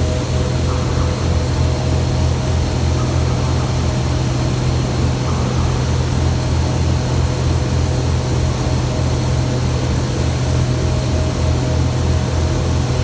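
Steady, loud industrial drone of ferronickel smelter furnace-hall machinery: a deep hum with a fast pulsing beneath it and a faint steady whine above, unchanging throughout.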